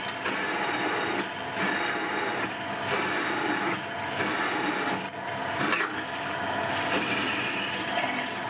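DIY CNC milling machine drilling a 7.7 mm pilot hole into a steel plate, to be reamed to 8H7. The spindle runs steadily under a cutting noise that swells and eases unevenly.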